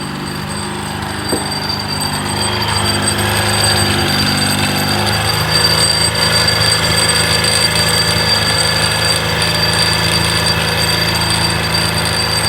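Honda BeAT scooter's small single-cylinder engine running. Its revs rise a couple of seconds in and then hold higher, with a metallic jingling rattle over the engine note. The rattle is the complaint noise, which turns out to come from a foreign object lodged in the engine.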